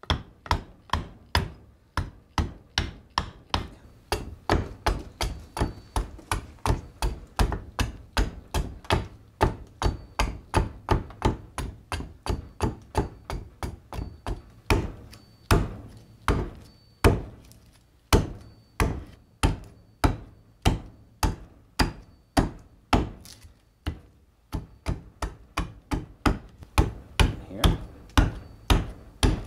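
Carving hatchet chopping into a green walnut ladle blank braced on a wooden chopping stump: a steady run of sharp knocks, about two to three strokes a second.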